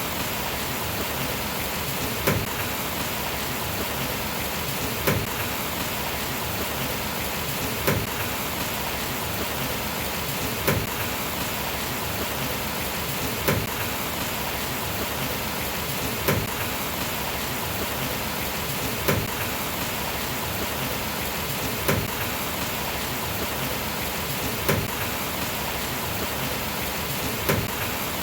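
Steady heavy rain falling, an even hiss, with a short sharp tap or drip standing out about every three seconds.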